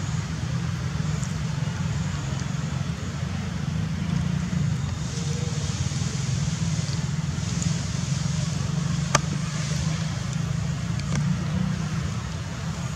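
Steady low rumbling background noise, with one sharp click about nine seconds in.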